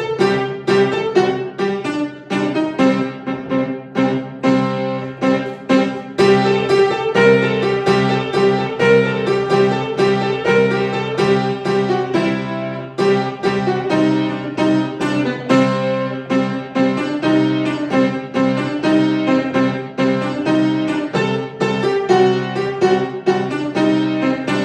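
Piano played as an improvisation in 7/8 time: quick repeated chords and melody notes over low bass notes that are held throughout.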